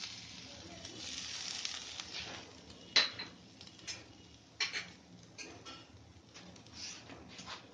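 Food sizzling in a hot frying pan as lemon juice is squeezed over an egg-and-bread omelette, fading after about two seconds. Then come scattered sharp clicks and clinks of kitchen utensils and dishes, the loudest about three seconds in.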